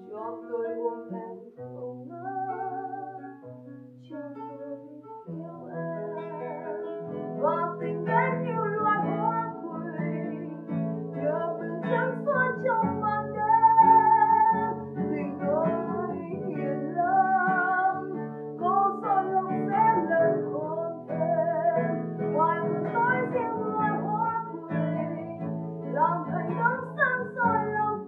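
A woman singing live with a man's nylon-string classical guitar accompaniment. The guitar part is sparse and quiet for the first few seconds, then fills out about five seconds in as the sung melody comes to the fore.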